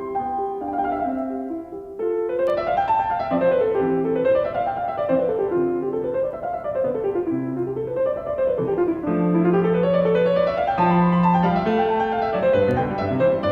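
Piano music: quick runs of notes sweeping up and down again and again over held low notes.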